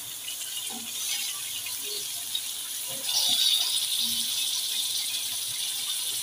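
Raw mutton pieces frying in hot oil with browned onions in an aluminium pot: a steady sizzling hiss that gets louder about three seconds in.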